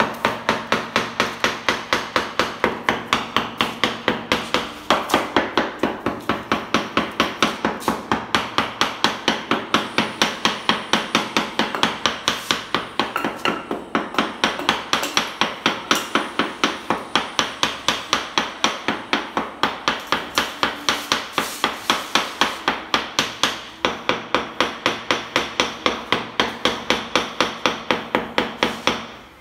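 Rapid, steady tapping with a wooden handle on a marble floor border strip, about three to four strikes a second with a couple of brief pauses, bedding the strip down into wet mortar.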